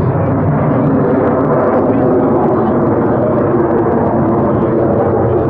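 F-35A Lightning II in flight, its single afterburning turbofan making a loud, steady jet rumble.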